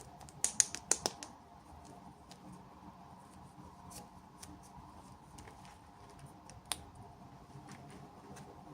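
Sharp little clicks and snips of small packaging being handled and opened by hand: a quick run of about six loud ones about half a second to a second in, then scattered faint taps and one louder click near the end.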